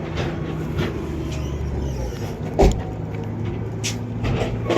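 An engine idling steadily, heard as a low hum, with one sharp thump a little over halfway through and a few lighter clicks.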